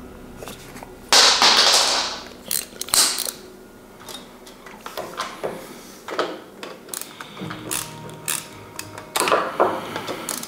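Ratcheting screwdriver clicking in short irregular runs as machine screws are driven into a 3D printer frame, with a loud burst of scraping noise about a second in and another near the end.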